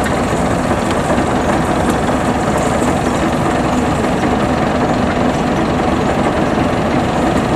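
Rice combine harvester running steadily as it cuts and threshes standing rice, its engine and threshing machinery giving a dense, even drone.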